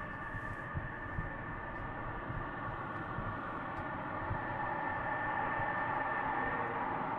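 Lockheed Martin F-22 Raptor's twin Pratt & Whitney F119 turbofans whining at taxi power over a low rumble as the jet rolls toward the camera, growing slowly louder.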